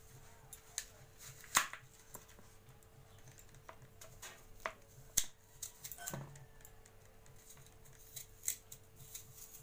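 Small kitchen knife cutting and coring an apple by hand: scattered short clicks and crisp snicks as the blade goes through the fruit, the sharpest about a second and a half in and about five seconds in, over a faint steady hum.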